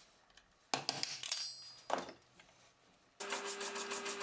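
Cast-iron and steel parts of an antique wine corker clattering and ringing as they are handled, twice. Near the end a steady, rhythmic mechanical sound with a low hum starts up, the start of cleaning grime off the parts.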